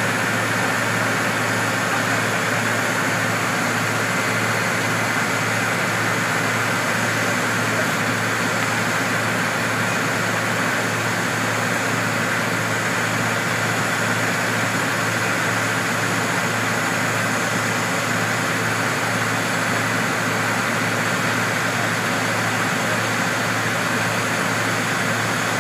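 Fire truck's diesel engine running steadily, an even drone that does not change.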